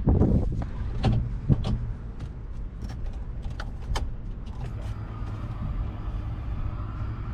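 Nissan 240SX being readied for a start attempt: scattered clicks and knocks over a low steady hum, with a faint steady whine coming in about five seconds in.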